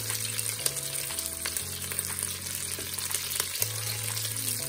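Slices of meat sizzling and crackling as they sear in oil in a Ninja multicooker's inner pot, with chopsticks turning them.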